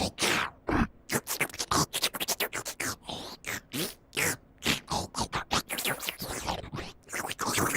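Noo-Noo, the Teletubbies' cartoon vacuum cleaner, making its sound effects: a rapid string of short sucking and squeaky noises, several a second, some sliding up or down in pitch.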